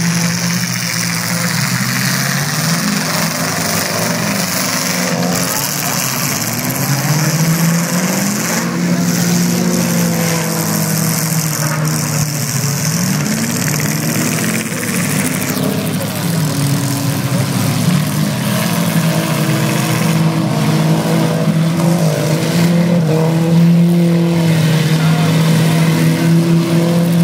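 Several demolition derby cars' engines running and revving, their pitch repeatedly rising and falling as they accelerate and back off.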